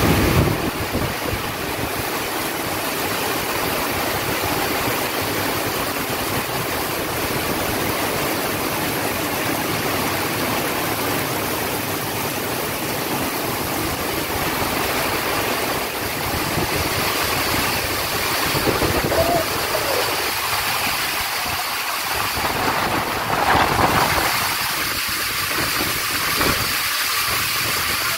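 Heavy rain pouring down steadily, a dense even hiss of falling water.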